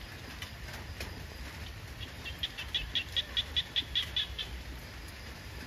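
A small animal's call: a rapid, even series of about a dozen high chirps, roughly five a second, starting about two seconds in and stopping after about two seconds.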